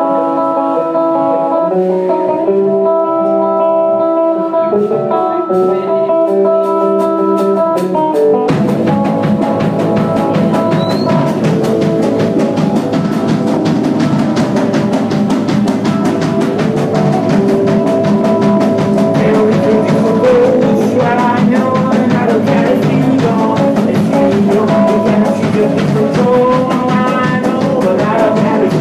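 Live garage rock band playing: electric guitar chords ring on their own for about eight seconds, then the drums and the full band come in together.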